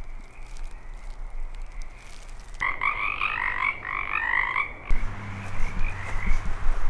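A chorus of frogs calling, many short repeated croaks overlapping, loudest in a dense run from a little before the middle to about two-thirds through, fainter before and after. A low steady hum joins in the last two seconds.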